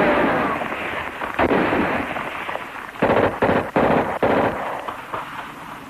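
Gunfire: shots with ringing tails. One fades out at the start, another comes about a second and a half in, and a quick run of about five shots follows around three to four seconds in.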